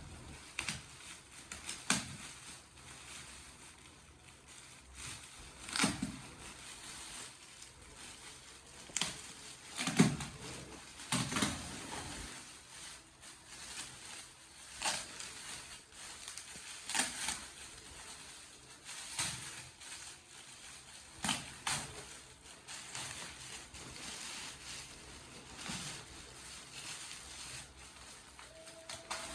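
Gift wrapping being torn open and crumpled by hand: irregular crackles and rustles, a sharp rip every second or two.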